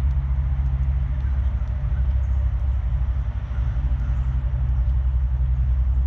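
A steady low rumble, mechanical in character, with a few faint, high bird chirps now and then.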